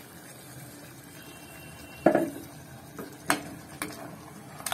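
A metal ladle stirring watery chicken curry in an aluminium pressure cooker: a slosh about two seconds in, then a few sharp clinks of the ladle against the pot.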